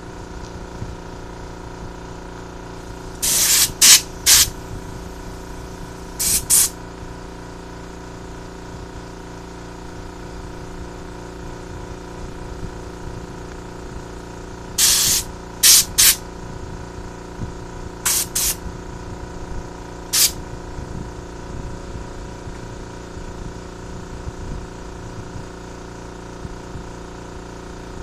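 Compressed air blasting from a handheld air blow gun in short bursts, about a dozen in groups of two or three, blowing parts clean. Under it the steady hum of a running air compressor.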